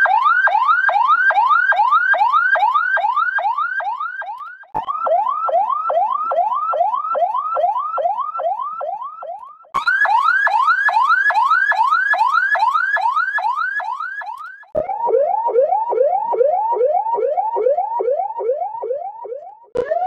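Electronic ambulance siren in a fast rising yelp, about three sweeps a second, played as four takes of about five seconds each, each with a slightly different sound treatment; the last take is lower in pitch.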